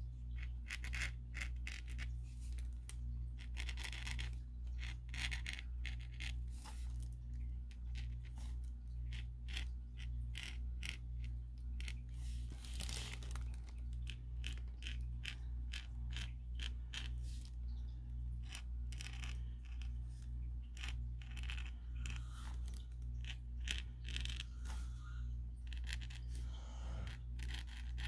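Acrylic paint-marker tip scratching over textured watercolour paper in many short strokes, over a steady low hum.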